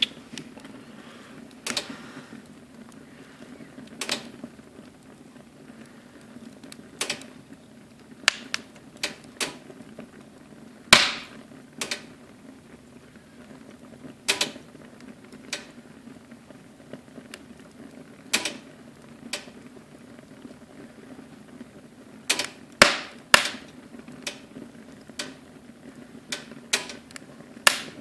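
Wood fire burning in a fireplace, crackling with irregular sharp pops over a low steady rush, the loudest pops about eleven seconds in and again around twenty-three seconds in.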